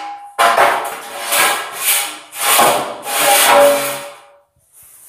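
A long straightedge dragged and swung across a bare concrete floor to find humps in the slab: about five gritty scraping strokes, with a faint ringing tone in some of them.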